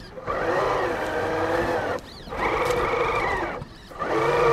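Electric motor and geared drivetrain of an RC crawler truck whining in three bursts of throttle, each holding a steady pitch before dropping off, the last starting about four seconds in.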